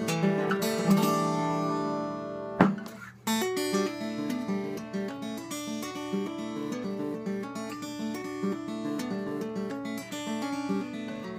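Solo acoustic guitar: chords ring for the first couple of seconds, a sharp strum comes about two and a half seconds in, and then individual notes are picked in a flowing melody.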